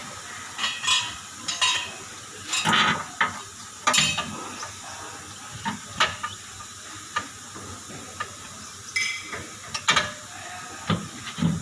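Hand tools clinking and knocking on metal suspension parts: irregular sharp metallic clicks and taps, some in quick clusters, over a steady background hiss.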